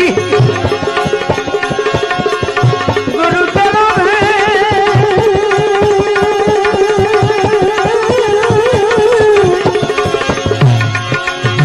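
Instrumental passage of a devotional bhajan: a held, wavering melody line played over fast hand-drum strokes in the tabla style.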